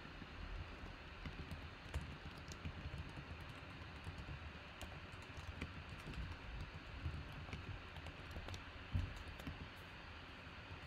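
Faint, irregular clicking of typing on a computer keyboard, with a few soft low thumps.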